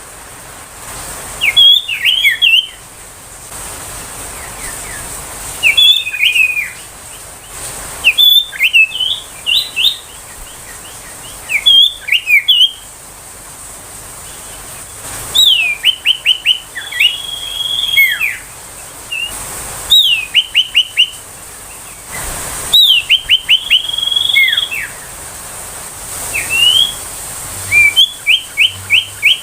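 Common iora (sirtu) singing: a short whistled phrase every three to four seconds, each a quick downward-sliding note followed by a rapid run of short repeated notes.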